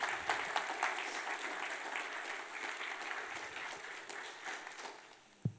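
Audience applauding at the end of a talk, the clapping thinning out and dying away near the end. Two short dull thumps come just before it ends.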